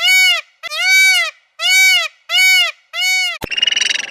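An animal calling over and over, about six short pitched calls with a rise-and-fall in pitch, each about half a second and coming a little more than once a second. A sharp click near the end, then a different rattling, croak-like call begins.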